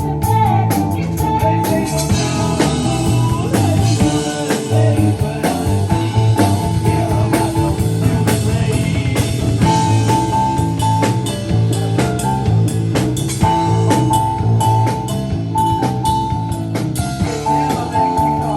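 Rock band playing a song live, with drum kit and guitar and a short high riff repeating over them.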